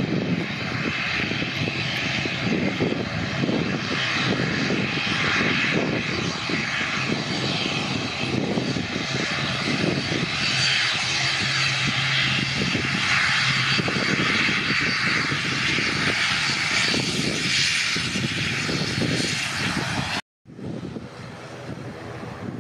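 Twin-turboprop ATR 72 airliner's engines and propellers running as it moves along the runway for departure: a steady, loud hiss over a pulsing lower drone. It drops out briefly about twenty seconds in and comes back quieter.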